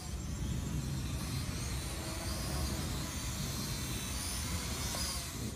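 Holy Stone F181G quadcopter flying: its motors and propellers make a high whine that wavers up and down in pitch as it manoeuvres, over a steady low rumble.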